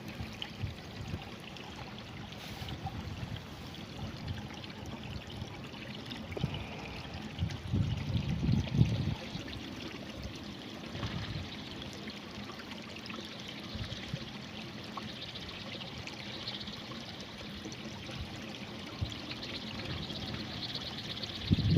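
Water flowing steadily in a rice-field irrigation channel, with a few brief low bumps about eight seconds in.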